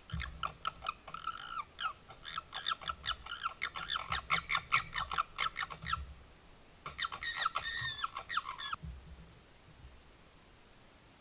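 Red fox calling in rapid, stuttering squawks: a long bout, then a shorter one about seven seconds in, with low thumps underneath.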